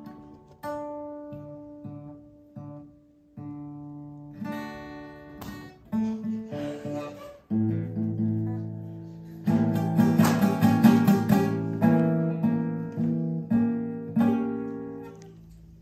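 Acoustic guitar played solo: single picked notes and light chords for the first half, building to loud, fast strumming about two thirds of the way in, then ringing chords that soften near the end.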